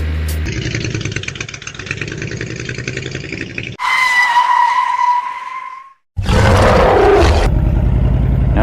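Motorcycle engine running, with a steady high beep about four seconds in that lasts about two seconds. The sound then cuts out completely for a moment and comes back with the engine running.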